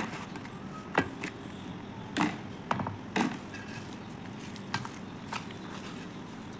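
A hand pressing and squeezing soft purple powder paste mixed with dry white powder in a steel bowl: scattered short crunches and squelches, with a sharp knock at the start and another about a second in. The crunches come in a cluster in the middle and thin out to a few faint clicks later.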